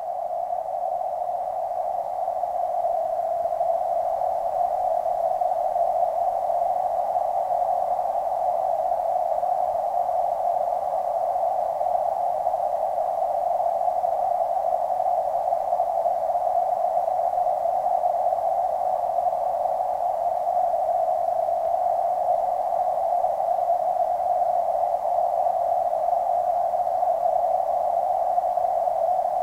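Steady, muffled rushing noise of creek water heard underwater through a waterproof camera housing, an even hiss held in a narrow middle band without a break.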